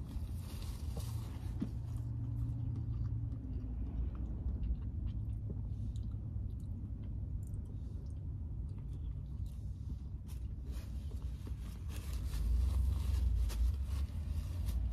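Close-up chewing and biting of fried cheese sticks, soft wet mouth sounds over a steady low hum.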